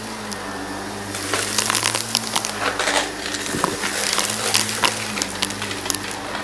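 Shark upright vacuum cleaner running on carpet: a steady motor hum, with crunchy debris crackling and rattling as it is sucked up through the floor nozzle from about a second in until about five seconds in.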